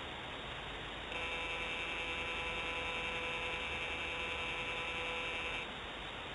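Steady high electric whine of the remote nest camera's pan motor, starting about a second in and cutting off suddenly near the end, over a steady background hiss.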